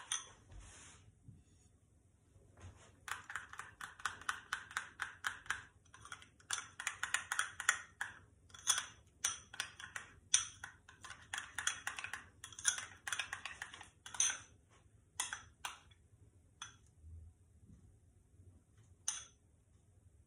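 Metal teaspoon stirring cream and chocolate in a small bowl, clinking quickly and repeatedly against the bowl's sides, then slowing to a few scattered taps near the end.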